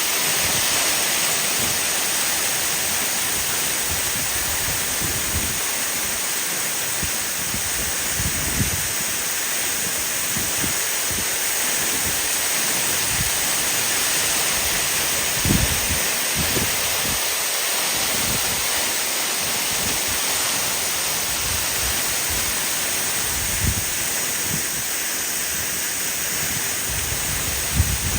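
Waterfall rushing steadily, with a few brief low thumps here and there.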